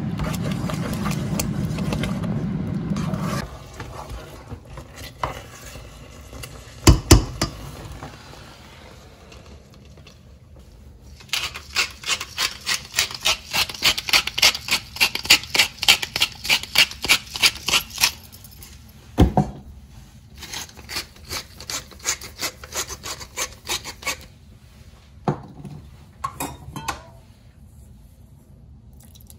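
Kitchen preparation sounds: a steady rushing noise that stops about three and a half seconds in, then a couple of sharp knocks and a run of quick, even rasping strokes, about three a second for some six seconds, followed by lighter scattered scrapes.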